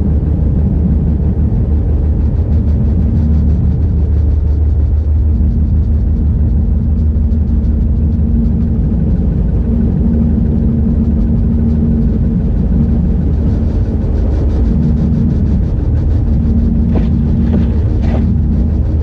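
Road noise inside a car driving on a snow-covered highway: a steady low rumble of tyres and engine with a constant hum. Near the end come a couple of brief, higher scraping sounds.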